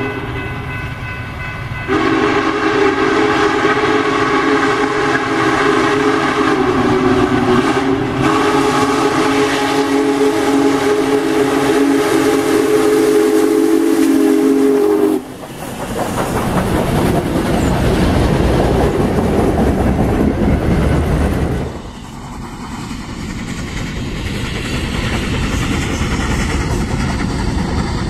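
Union Pacific Big Boy 4014 steam locomotive's whistle blowing a long multi-note chord as it approaches, cutting off abruptly about fifteen seconds in. Then the locomotive passes close by with a loud rumble of exhaust and wheels on rail, and after a sudden drop near the end the passing train is heard as a quieter, more distant rumble.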